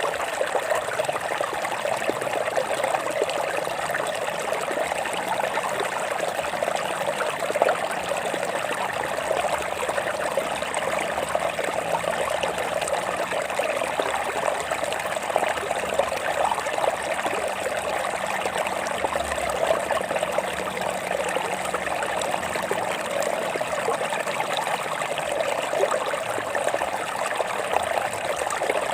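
Stream water flowing and splashing over rocks, a steady babbling with no let-up.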